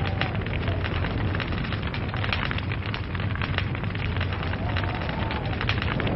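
Log fire crackling densely and steadily, with a constant flow of sharp snaps and pops over a low rushing of the flames. A faint tone rises and falls briefly about five seconds in.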